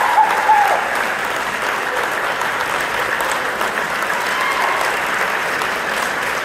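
A large audience applauding steadily, with a few voices calling out in the first second.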